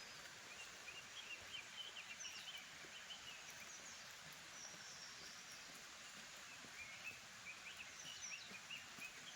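Small birds chirping faintly: short, high chirps and twitters scattered throughout, over a quiet background hiss.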